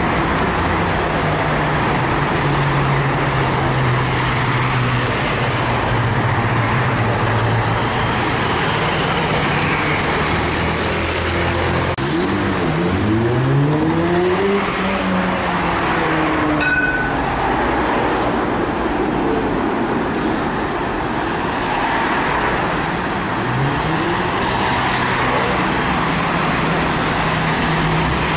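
Street traffic with a heavy road vehicle's engine running steadily, then pulling away about twelve seconds in with its pitch rising. Another vehicle accelerates near the end.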